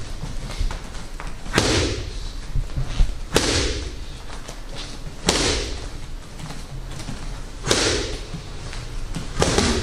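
Gloved punches smacking into focus mitts: five loud hits about two seconds apart, each with a short echo, and lighter taps in between.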